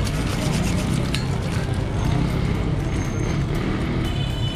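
Steady street noise of passing traffic, with background voices.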